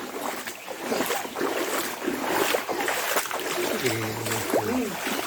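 Floodwater sloshing and splashing in an irregular stream of noise, with faint voices briefly about four seconds in.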